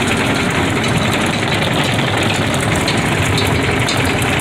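Cat 305 mini excavator's diesel engine running steadily, heard from the operator's seat. It runs without stumbling now that the fuel system that let it suck air and lose prime has been resealed.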